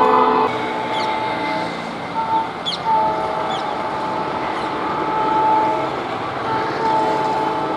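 Diesel locomotive train of Indian Railways running past: a loud horn blast cuts off about half a second in, then the train's steady rumble continues with fainter horn tones sounding from about three seconds in and again near the end.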